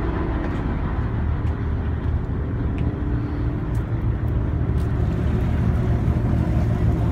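Inboard engine of a 1978 Key West 45 charter boat idling steadily after start-up: a continuous low rumble with a fast, even firing pulse.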